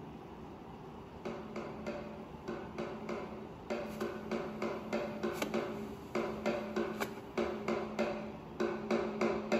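Drum beating from a film soundtrack, played back through a projector and picked up in the room. After a faint hiss, the strikes begin about a second in, roughly three a second in an uneven rhythm, and grow louder.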